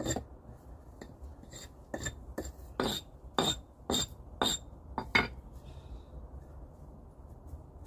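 A series of sharp knocks with a bright, clinking ring, about two a second, that stops about five seconds in.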